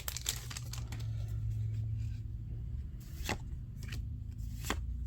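Pokémon trading cards being handled and flipped through by hand, with two sharp card snaps about three and four and a half seconds in, over a steady low hum.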